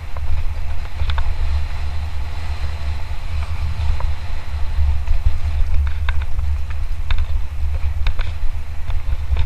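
A mountain bike on a fast descent: a steady heavy wind rumble, with scattered sharp clicks and rattles from the bike over the trail.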